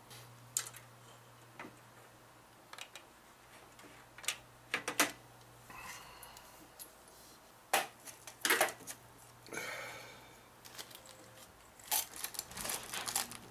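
Scattered clicks, taps and light clatter of small plastic and metal hardware handled close up: the liquid cooler's pump head and AMD mounting bracket being turned and fitted. A faint steady low hum runs underneath and stops near the end.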